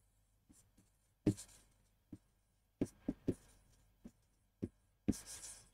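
Pen tapping and scraping on the glass of an interactive display while writing: about ten short, uneven knocks, the loudest about a second in and near the end, the last one followed by a brief scratchy hiss.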